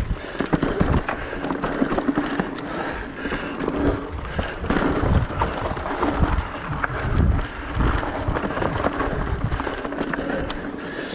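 Mountain bike riding over dirt singletrack strewn with dry leaves: tyres rolling and the bike rattling, with irregular low thuds over bumps.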